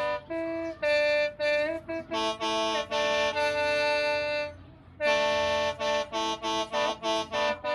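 A free-reed mouth organ playing several notes at once over a steady drone note. It plays a few short chords, holds one long chord, pauses briefly about halfway through, then plays quick repeated chords.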